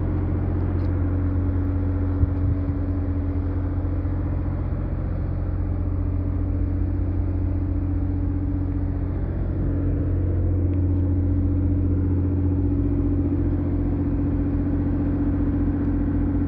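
Engine running steadily, a low even hum with no change in speed.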